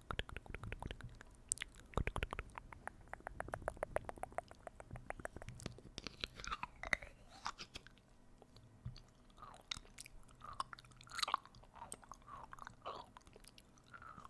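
Close-miked ASMR mouth sounds: a fast run of wet tongue clicks and smacks, then slower sucking and slurping sounds that slide in pitch, made as if eating.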